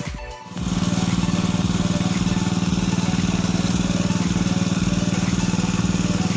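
A small engine running steadily at an even speed, starting suddenly about half a second in after a brief dip.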